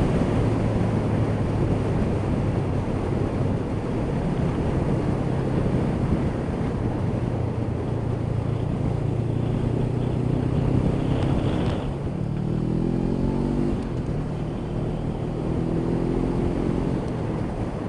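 Motorcycle engine running under way, heard with wind rush on a helmet microphone. The engine note holds steady for most of the time, then rises twice in the second half as the bike accelerates.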